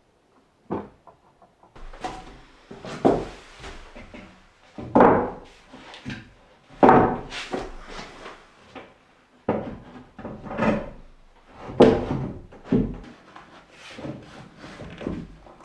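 Wooden floorboards being handled and set into place on a plank floor: a series of irregular wooden knocks and thuds, about a dozen, the loudest a second or two apart.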